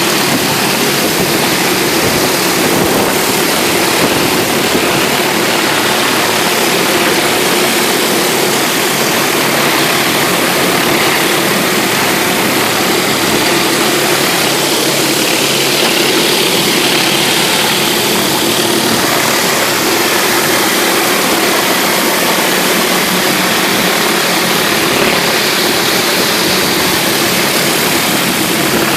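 Gas-engine pressure washer running steadily under load, with a constant hiss of high-pressure cold water spraying onto concrete.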